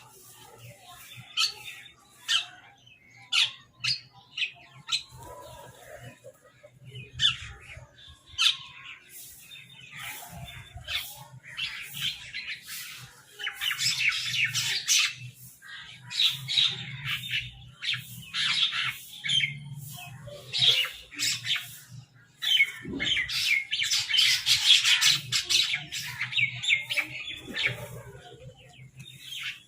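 Crows squabbling over food, giving many short harsh squawks that build into long bouts of dense, overlapping chattering twice in the second half, over a faint steady low hum.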